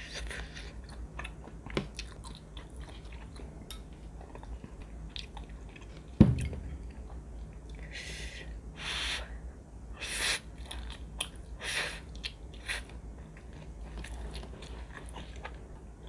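Close-miked chewing and biting of a grilled chicken skewer and ramen noodles, with small wet clicks of the mouth. About six seconds in there is one dull thump, the loudest sound, and between about eight and twelve seconds several short, loud slurping sounds of noodles.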